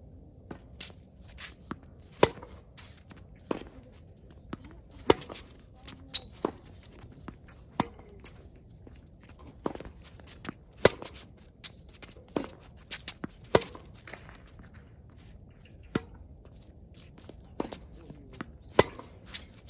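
Tennis rally on a hard court: sharp pops of racket strings striking the ball. The loudest hits come about every three seconds from the nearer player, with quieter ball bounces, far-side hits and footsteps in between.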